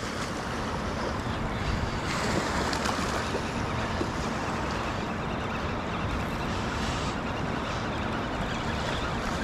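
Steady wind noise on the microphone, with small waves lapping at the sandy shore.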